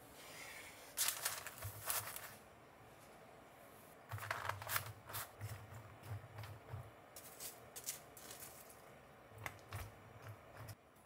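A kitchen knife slicing through a block of raw pork onto a wooden cutting board, a few sharp knocks in the first couple of seconds. Then handfuls of raw bean sprouts being spread in a bamboo steamer basket, a long run of light rustles and clicks that stops shortly before the end.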